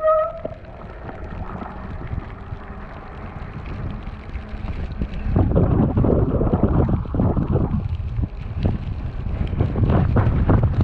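Wind buffeting a GoPro action camera's microphone during an e-bike ride through snow, an irregular low rumble that grows louder about five seconds in. A brief tone sounds at the very start.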